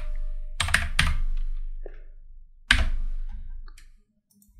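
Computer keyboard typing: a few separate keystrokes with pauses between them, each trailing off briefly.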